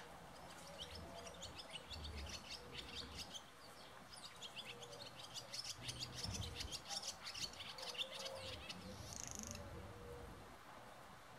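Barn swallows twittering: two long runs of rapid, high chattering notes, the second ending in a short buzzy rattle about nine seconds in.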